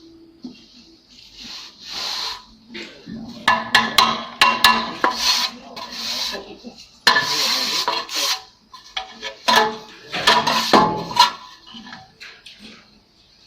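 Steel plastering trowel scraping cement render across a wall, in irregular strokes with sharp metallic clicks and taps in between.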